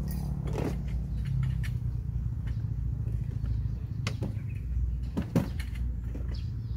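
Wooden slats of a folding camp table clattering and knocking as it is handled and unfolded, with a sharper knock about five seconds in. Under it runs a steady low motor hum.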